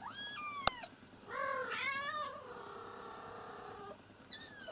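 Domestic cats meowing: a short high falling mew, a louder wavering call that trails into a long, quieter held tone, then another high falling mew near the end, with one sharp click about a second in. A kitten too scared to climb down from a height and its mother calling to it.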